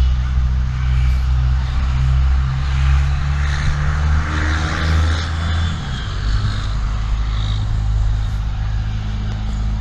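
A car's engine and road noise, heard steadily from inside the cabin while driving; the engine note drops about six seconds in.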